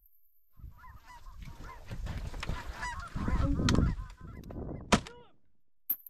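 Geese honking, many short calls overlapping, over a low rumble. Near the end, two sharp shotgun shots come about a second apart, and the honking stops after the first.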